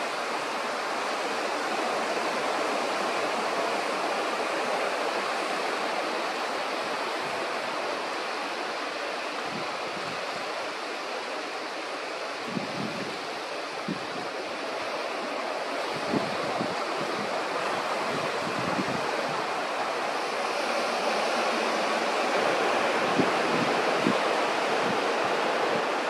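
Steady wash of sea surf on a rocky shore, with occasional low thumps of wind on the microphone.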